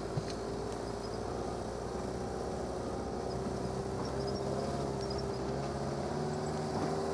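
Off-road 4x4's engine running at a steady, even pitch, heard from inside the vehicle as it drives along a grassy track. One light click about a quarter second in.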